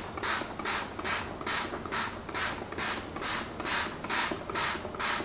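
Gerard Cosmetics Slay All Day setting spray pumped from its bottle in quick repeated spritzes, about three a second, each one a short hiss of mist.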